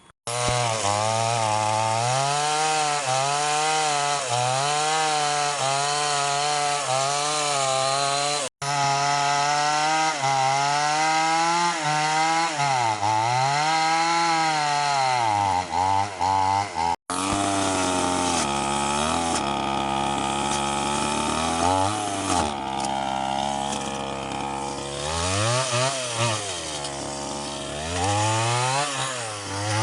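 Stihl MS 381 two-stroke chainsaw cutting mahogany, its engine pitch rising and falling over and over as the chain bites into the wood and frees up again. The sound cuts out for an instant twice.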